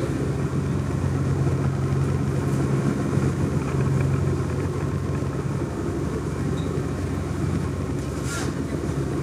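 Ferry's engine running steadily, a low even hum heard inside the passenger cabin.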